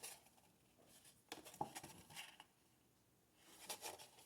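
Near silence with a few faint scrapes and taps about a second in and again near the end: a cardboard trading-card box being handled.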